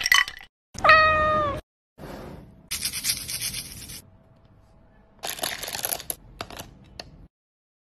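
A cat's single short meow about a second in, its pitch sliding slightly down. It is followed by stretches of rattling, with small round candies dropping and clattering into a plastic cup in the later part.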